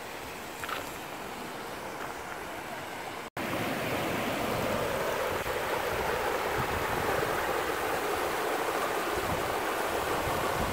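Shallow rocky stream rushing over stones and a small cascade, a steady noise of running water. It jumps louder after a sudden cut about three seconds in.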